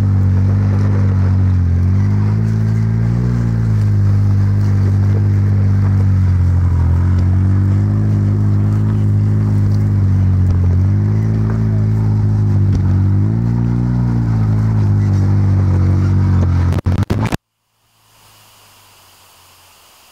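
Off-road buggy engine running steadily, its revs rising and falling a little. About 17 s in the sound crackles and cuts out abruptly, leaving only a faint hiss: the recorder's audio cable broke.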